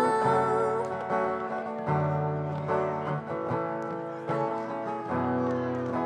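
Acoustic guitar strumming chords through an instrumental passage of a song, while the singer's held note wavers and trails off within the first second.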